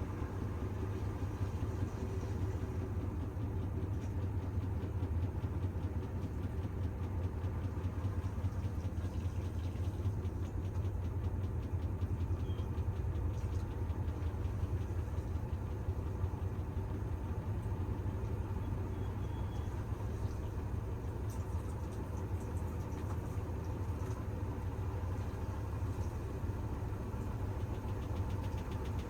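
Bosch washing machine drum spinning with an unbalanced load: a steady low rumble with fast, even vibration throughout.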